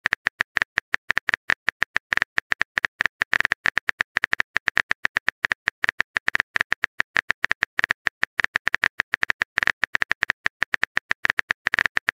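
Smartphone keyboard typing sound effect: a rapid, uneven stream of short clicks, several a second.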